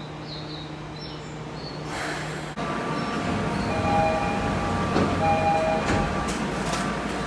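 Railway door chime in its dissonant form: two close, clashing notes sounding together, heard twice over a steady whine of the train. A short burst of hiss comes before it, and a few knocks follow near the end.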